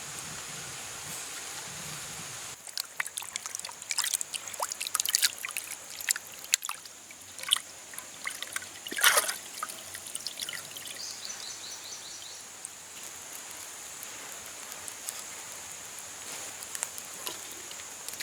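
Water trickling and splashing, with a busy run of clicks and splashes in the first half, the loudest about nine seconds in, settling to a steady trickle.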